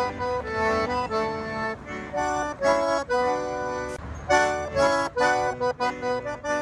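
Accordion playing a lively melody over chords, notes changing in quick succession, with a short break in the phrase about four seconds in.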